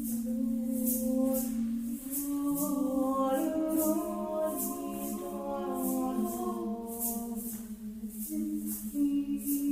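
Several voices singing long, overlapping held notes that shift pitch in steps, over a shaker rattling in a steady pulse about two to three times a second.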